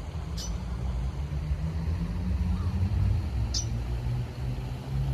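Low, steady rumble of motor traffic, with two short high chirps, one about half a second in and one near three and a half seconds.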